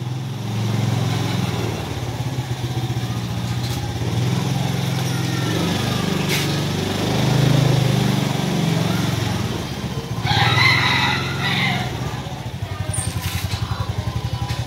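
A small engine running steadily, its beat becoming more distinct near the end. A rooster crows once about ten seconds in.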